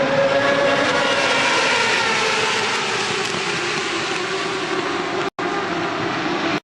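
Racing motorcycle engines running at high revs on track, their pitch gliding up and down with throttle and gear changes. The sound drops out for an instant a little after five seconds in.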